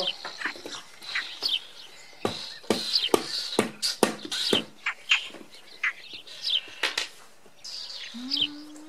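Plasticine being pressed and patted onto a tabletop by hand: a string of irregular soft knocks, with short high chirps falling in pitch in between.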